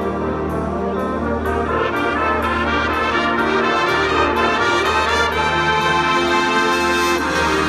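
Marching brass ensemble, tubas and bell-front horns, playing full sustained chords that grow louder and brighter about two seconds in, with a light steady tick above.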